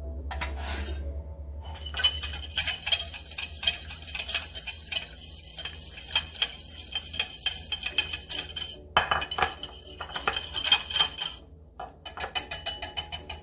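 A utensil beating egg yolks, milk and vanilla in a bowl, clinking rapidly and steadily against the bowl's sides, with a brief pause near the end before the clinking resumes.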